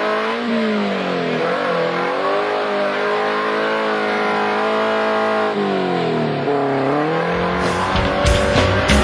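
Suzuki Samurai engine revving under load as it crawls over rocks. Its pitch dips twice and climbs back each time. Near the end a heavy low rumble and a run of sharp knocks come in.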